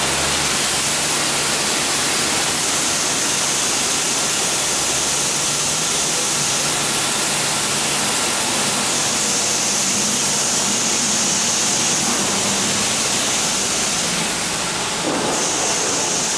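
Smart Cyclone automatic brush car wash running: water spraying and rotating brushes scrubbing the car, a steady loud hiss and rush of water with a faint low machine hum underneath.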